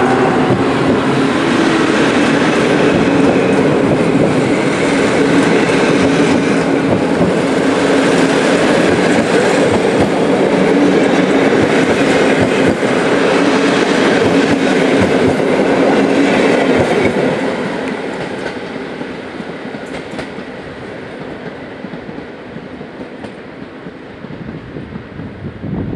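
Passenger coaches rolling past close by on the rails, with steady wheel-on-rail noise. About two-thirds of the way through, the sound fades away over a few seconds as the last coach draws off.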